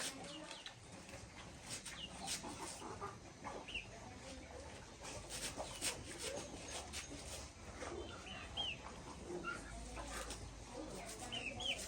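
Farmyard chickens clucking and chirping faintly, with short high chirps now and then, among scattered light clicks and knocks.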